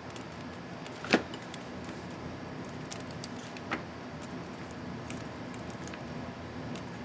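Small plastic clicks from an Acer M5-581T keyboard's keycap and retainer clips being handled and fitted: one sharp click about a second in, a softer one near four seconds, and faint ticks between. A steady background hum sits under them.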